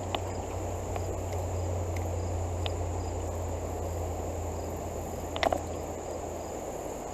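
Steady, high-pitched insect chorus over a low rushing hiss of fast-flowing creek water, with a few faint ticks and a short rustle about five and a half seconds in.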